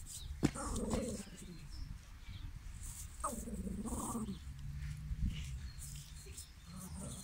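A small long-haired dog barking: two drawn-out, pitch-sliding barks, one near the start and one about three seconds in.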